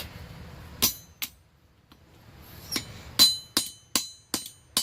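Light hand hammer striking the forged mild-steel block: two blows about a second in, then after a short pause a steady run of blows about two and a half a second, each with a short metallic ring. This is light planishing of the block's faces.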